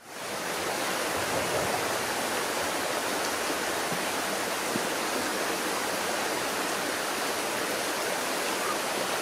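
Steady rushing of a nearby rocky stream, an even wash of running water that fades in over the first half-second.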